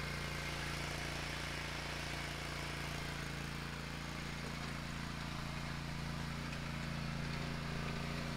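Zero-turn riding mower's engine running steadily as the mower drives off.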